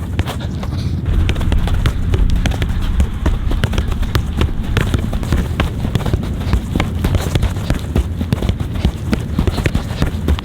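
Quick, irregular taps and thuds of a soccer ball being touched and struck by feet, several a second, over a steady low rumble.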